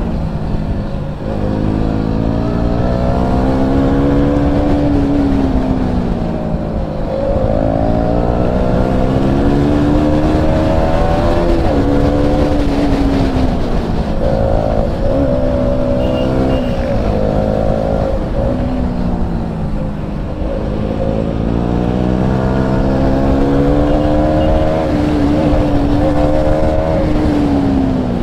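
KTM Duke motorcycle's single-cylinder engine under way, its revs climbing and dropping again and again as the rider accelerates, changes gear and rolls off, over a steady rush of wind and road noise.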